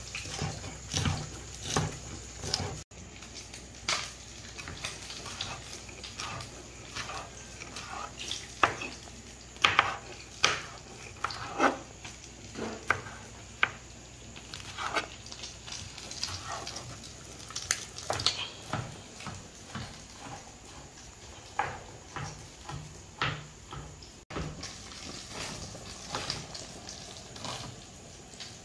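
Chef's knife chopping scallions and green bell pepper on a plastic cutting board: irregular sharp knocks of the blade striking the board, loudest about a third of the way in.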